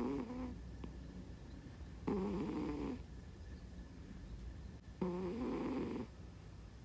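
A domestic cat snoring loudly in its sleep. Each snore lasts about a second and wavers in pitch, coming roughly every three seconds: one just at the start, then about two seconds in and about five seconds in.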